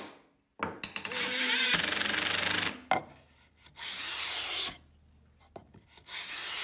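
Whoosh sound effects of an animated logo intro: a few clicks, then a long loud rushing swoosh from about a second in, followed by two shorter, softer swooshes around four and six seconds.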